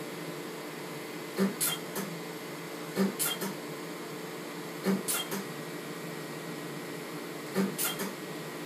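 VBeam pulsed dye laser firing four times, about every two seconds: each pulse is a short hissing squirt of cryogen cooling spray with a sharp click. A steady machine hum from the laser console runs underneath.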